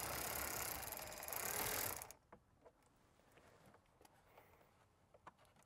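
Ratchet wrench spinning a 7 mm dash bolt out of the radio mount, a rapid run of clicking for about two seconds, then a few faint light clicks as the loosened bolt is handled.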